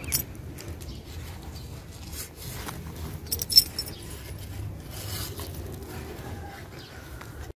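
Handling noises: light scrapes and small clinks, with one sharp click about three and a half seconds in.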